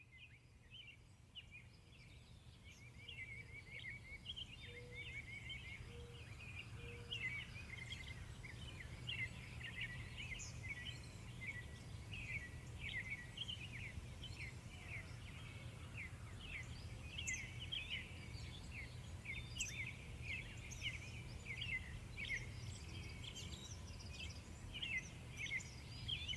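A busy chorus of birds chirping, with many short calls overlapping. It swells over the first few seconds and runs over a low steady hum.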